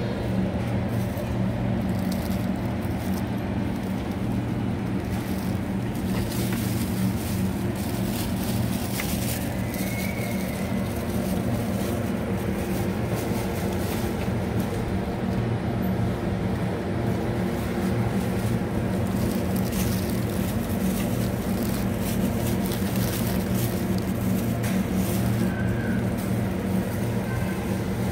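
Steady low machine hum of refrigerated produce cases and store ventilation, a few constant low tones under an even noise.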